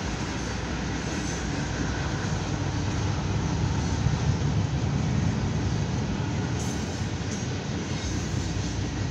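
Freight train of tank cars, gondolas and hoppers rolling past a grade crossing: a steady low rumble of wheels on rails, heard from inside a stopped car.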